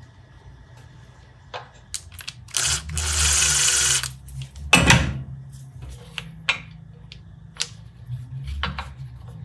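Workshop work sounds: scattered sharp clicks and knocks of tools and material being handled, a loud burst of noise lasting about a second and a half around three seconds in, and a loud knock near the middle.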